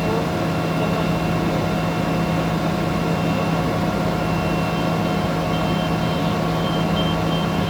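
Industrial machine running steadily with a constant hum, with a faint high whine coming and going after the middle.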